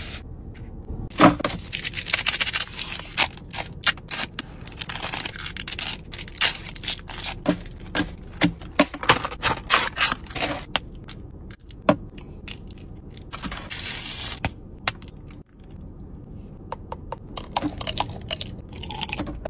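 A plastic wrapper crinkling and tearing as hands pull it open, a dense run of crackles, with scattered clicks and taps near the end.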